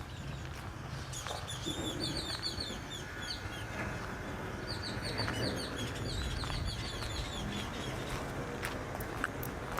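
Birds chirping in quick runs of short, high notes, several series overlapping, over a low steady background rumble.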